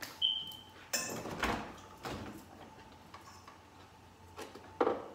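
Refrigerator door being opened and shut while a jar is taken out: a brief high squeak near the start, then several separate knocks and clunks, the sharpest one near the end.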